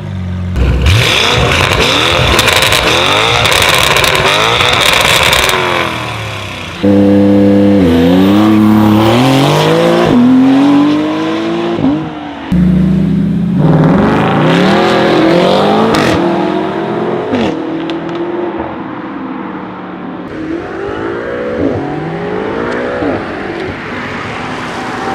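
Supercar engines accelerating hard, the pitch climbing through the revs and dropping back at each gear change, in several clips that cut abruptly about seven and twelve and a half seconds in. The first few seconds are a loud, rough roar before clearer rising engine notes take over.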